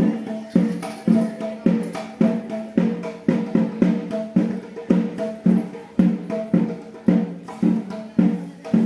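Background music with a steady percussion beat of about two pitched drum strokes a second.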